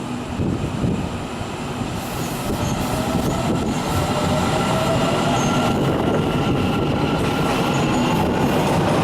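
A Taiwan Railways train coming through the station, its rail noise growing steadily louder, with a thin steady whine running over it.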